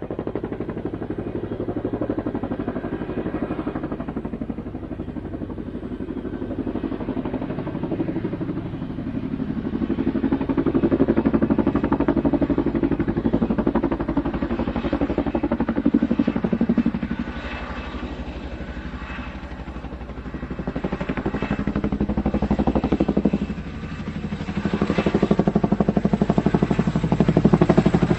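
Helicopter running, its rotor blades making a fast, even chop over a steady engine drone. The sound swells and fades in waves and grows louder near the end.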